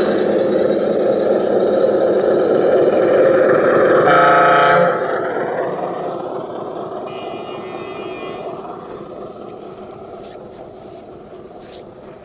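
Radio-controlled trucks' sound modules playing a running diesel engine, with one horn blast about four seconds in. After the horn the sound fades steadily away.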